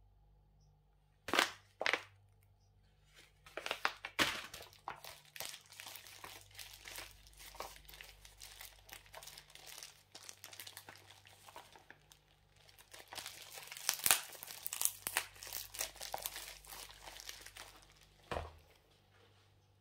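Packaging crinkling and rustling as it is handled during unboxing: two short crackles about a second in, then long runs of dense crackling with a lull around the middle, and a single knock near the end.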